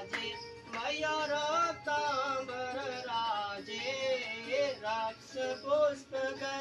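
Devotional singing with instrumental music, a melodic sung line held and bent in long phrases.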